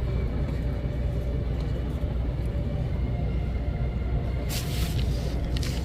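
Steady low rumble of city street traffic, with a brief burst of hiss about four and a half seconds in and a shorter one near the end.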